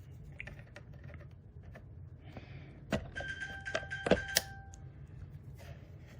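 Clicks and light scraping of a pry tool working along the seam of a plastic hard-drive enclosure, with a few sharper snaps about three to four and a half seconds in, over which a short ringing tone sounds.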